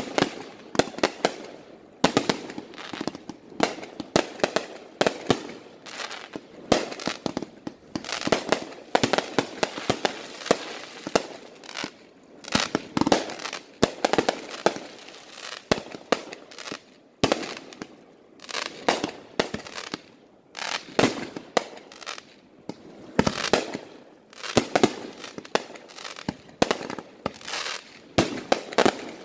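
Aerial fireworks going off: a long, irregular run of sharp bangs from bursts overhead, several a second at times, with short gaps between volleys.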